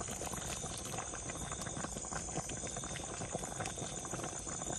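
Thick tempoyak fish curry simmering in a pan, bubbling with a dense run of small irregular pops, while a ladle lifts gravy and pours it back in.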